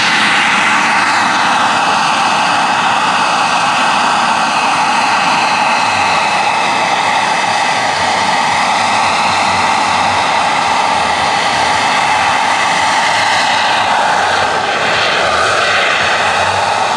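Turbine engine and four-blade main rotor of a large scale RC Eurocopter EC 135 model helicopter in flight: a steady turbine whine over rotor rush. The whine drops in pitch over the first two seconds and sweeps again near the end as the helicopter moves.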